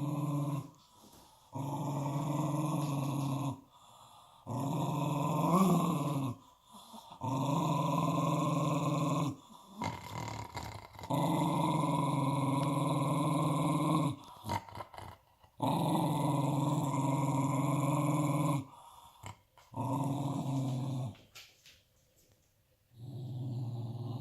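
Dog growling in long, steady, low growls of two to three seconds each, about eight in a row with short breaths between. One growl about five seconds in swells and rises in pitch briefly.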